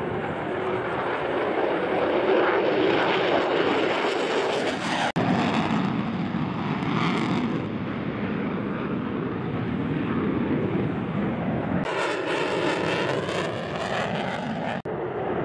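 Fighter jet engine noise, a loud continuous rush as the jet takes off and climbs away, broken abruptly about 5 and 12 seconds in. After the second break a flyby brings a wavering, whooshing hiss.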